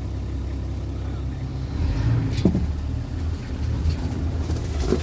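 Safari vehicle's engine running with a steady low rumble that gets louder about two seconds in, with a single knock shortly after.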